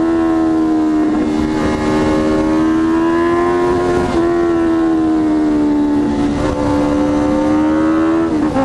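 Honda CB650F inline-four with a full Jeskap GP2 R exhaust running under way at steady road revs, the note climbing gently and then easing off, with a quick drop in pitch near the end. Wind rushes over the microphone throughout.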